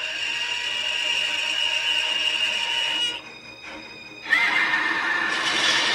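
Two long, high screeching roars from a giant monster. The first cuts off about three seconds in, and the second starts suddenly about a second later, slightly falling in pitch.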